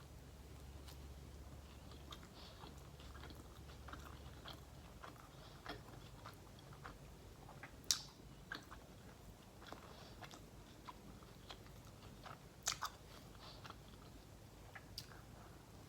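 Close-miked chewing of a saucy sub sandwich, with soft wet mouth clicks and smacks. There is a sharper click about eight seconds in and another about thirteen seconds in.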